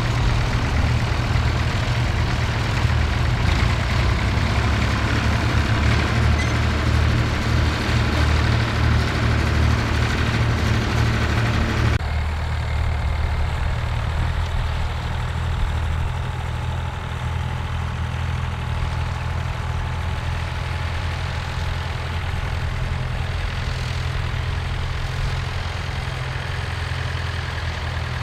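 Vintage farm tractor engines running steadily. About 12 seconds in it changes abruptly to a single tractor running with a mounted plough, slightly quieter and duller.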